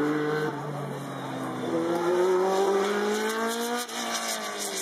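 Race car engine accelerating hard: the revs climb for about two seconds, drop sharply at a gear change about four seconds in, then start climbing again.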